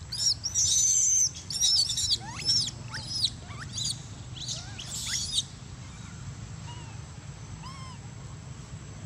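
Baby long-tailed macaque crying in distress: a rapid run of high-pitched, arching squeals and screams through the first five and a half seconds, then a few fainter squeals near the end.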